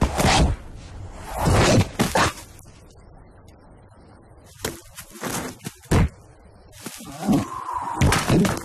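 Cartoon slapstick sound effects: a run of sharp thuds and crashes, then a drawn-out cartoon vocal sound near the end.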